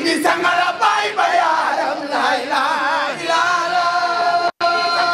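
A crowd of worshippers chanting a zikr together, several voices holding and wavering on sung notes, with one long held note in the second half. The sound drops out for an instant near the end.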